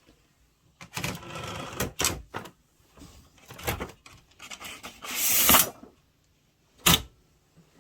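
Kong Byung-woo Hangul typewriter (Gong Hanyeong 201) being worked after the typing: a couple of longer sliding, ratcheting runs, the loudest about five seconds in, and a few sharp single clacks, with no steady keystroke rhythm.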